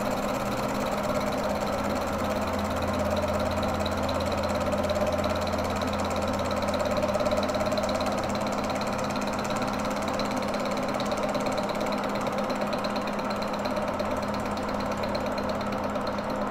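Monarch engine lathe running, its three-jaw chuck spinning while a tool bit faces a sixteenth of an inch off a water neck's flange: a steady gear-drive hum with the hiss of the cut over it. The sound drops off suddenly at the very end.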